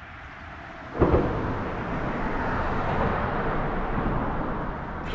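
Wind buffeting the microphone: a sudden rush of rumbling noise about a second in that carries on unevenly.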